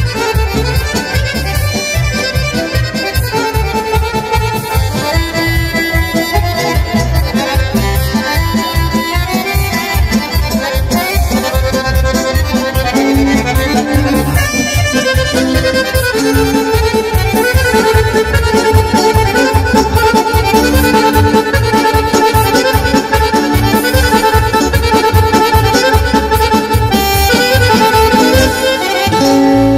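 Instrumental Balkan folk dance tune for a kolo, led by accordion, played loud through a PA with a steady fast beat.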